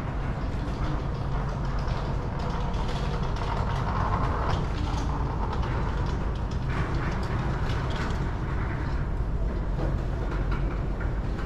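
Steady low rumble of passing vehicle traffic, with scattered faint clicks.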